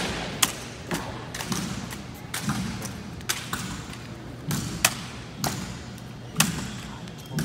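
Sharp, irregular knocks and slaps from a wooden drill rifle being spun, caught and handled, about ten of them spaced unevenly over several seconds.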